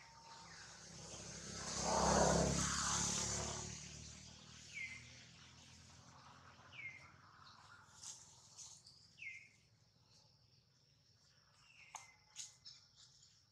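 Short high chirps, each falling in pitch, repeat every two seconds or so, with a rush of rustling noise that swells and fades about two seconds in and a few faint clicks near the end.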